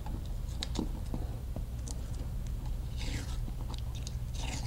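Masking tape being pulled off the roll and wrapped around a DC connector taped to a wire-fishing snake: crinkly ticks, then two short ripping rasps, one about three seconds in and one near the end, over a steady low hum.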